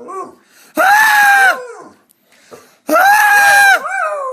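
A person and a dog screaming back and forth: two loud, high, steady held screams, one near the start and one about two seconds later. Each is followed by quieter wavering, falling howls.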